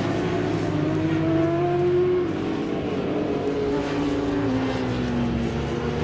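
Superbike racing motorcycle engines running hard on the circuit, several at once, their pitch slowly rising and falling.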